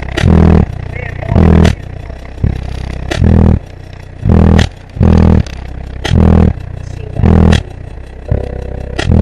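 Skar Audio VD12 subwoofers playing bass-heavy music loud inside the car cabin, deep bass hits about once a second that max out the recording.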